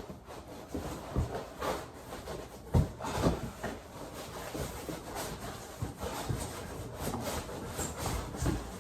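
Cardboard shipping box being opened and handled: irregular rubbing and scraping, with scattered thumps and knocks, the loudest about three seconds in.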